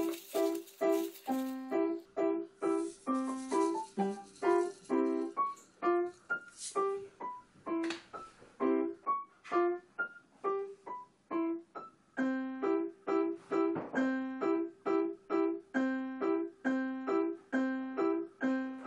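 Background music: a light keyboard tune of short, evenly spaced notes at a steady, bouncy rhythm.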